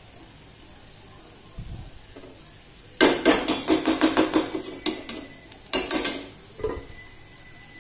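Metal spoon knocking and scraping against a kadhai while stirring curry. A dull thump comes first, then a quick run of sharp clinks for about two seconds, and a few more after a short pause.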